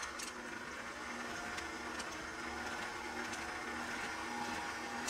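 Electric stand mixer running at a steady speed: a motor hum with a higher whine, its beater working thick cheesecake batter in a stainless steel bowl.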